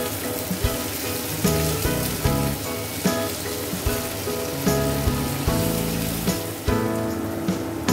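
Background music with a steady beat and changing chords, over a continuous even hiss.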